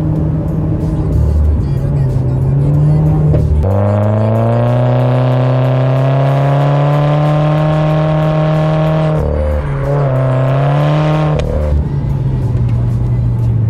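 Subaru Forester XT's 2.0-litre turbocharged flat-four engine running through an aftermarket sport exhaust. It drones steadily at cruise, then pulls hard with its pitch climbing for about five seconds. After a gear change it makes a second, shorter pull and settles back into a steady drone.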